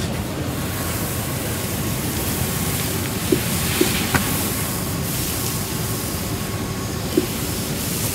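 Fire engine running at the pump, with the steady rushing hiss of a hose stream spraying water. A few short knocks sound in the middle and once near the end.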